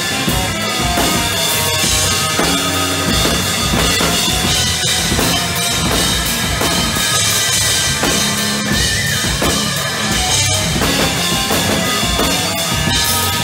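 A prog-metal band playing loud and live: a Mapex drum kit with bass drum and snare, a Strandberg electric guitar through a Mesa Boogie amp, and a Music Man Bongo bass.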